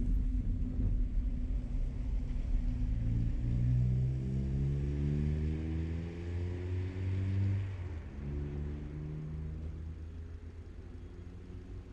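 Motor vehicle engine running with a low rumble; its pitch rises steadily for a few seconds in the middle, breaks off, then returns briefly before the sound eases down.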